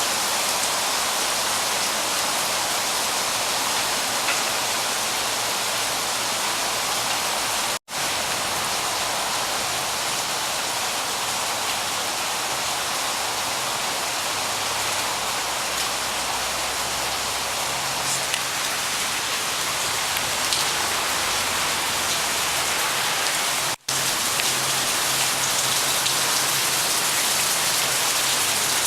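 Heavy rain falling steadily, an even hiss of rain on surfaces, broken by two momentary gaps.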